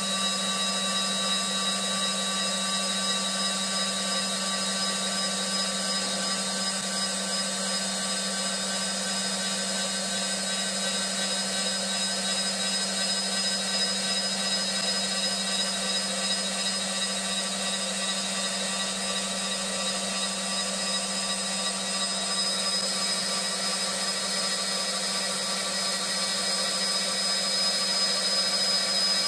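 CNC woodturning lathe running, its saw-blade tool spinning at 18000 RPM and cutting along a wooden pool cue blank that turns at 700 RPM. A steady machine whine over cutting hiss, getting slightly louder near the end.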